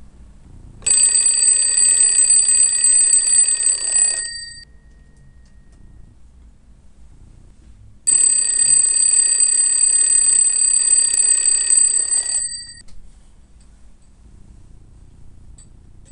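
Alarm clock ringing in two bursts of about four seconds each, a few seconds apart, waking a sleeper.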